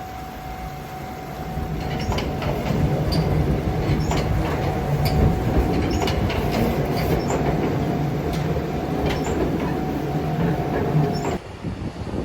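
A train running on rails: a rumble that builds about two seconds in, with irregular clicks of the wheels over rail joints and a steady whine under it. It cuts off abruptly near the end.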